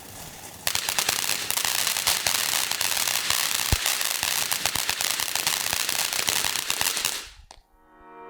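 Fireworks crackling: a dense run of rapid pops and crackles starts about a second in and dies away near the end.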